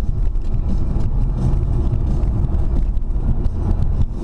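Car driving along an open road, heard from inside the cabin: a steady low drone of engine and tyre noise.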